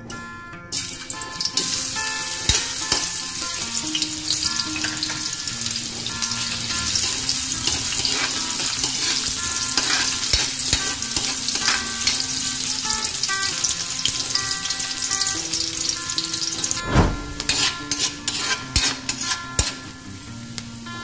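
Food hitting hot oil in a stainless steel wok starts sizzling about a second in and keeps sizzling steadily. A metal spatula stirs and scrapes against the wok, with sharp knocks near the end. Light background music plays underneath.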